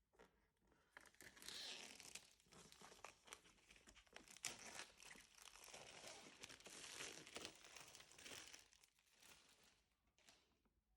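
Keyboard packaging being handled and unwrapped, crinkling and rustling with small crackles for about nine seconds.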